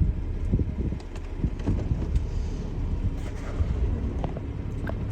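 Jeep Wrangler engine running at low speed, a steady low rumble with scattered small clicks.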